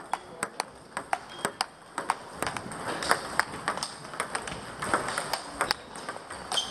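Table tennis balls being hit back and forth on several tables: a quick, irregular patter of sharp clicks from bats striking the ball and the ball bouncing on the tables.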